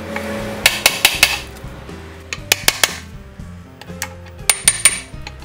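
Hammer blows on steel, in quick runs of three to five strikes, on the drum-brake hub of a 1975 Bedford truck axle, knocking loose a stuck part. Background music runs underneath.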